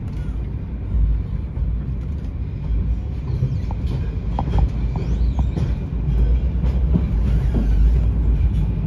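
Diesel locomotive engine running with a steady deep rumble as the locomotive rolls slowly past on the tracks.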